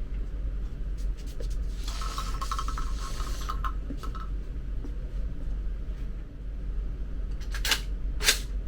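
Rubbing and scraping handling noise, then two sharp cracks about half a second apart near the end.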